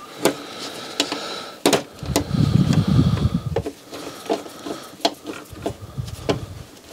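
Irregular clicks and knocks of small parts being handled, with stretches of low rubbing or scraping. These are hands working inside an opened CD player.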